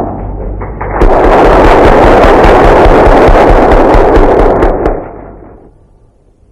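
A crowd applauding, starting loudly about a second in and fading out near the end.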